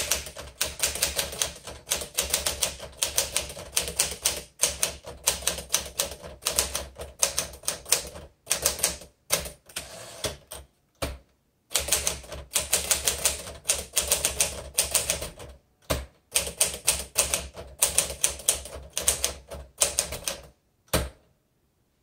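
1957 Smith Corona Sterling manual typewriter being typed on: quick runs of key and typebar strikes, several a second, broken by brief pauses. The action is light and free, with no stiffness or sticking keys.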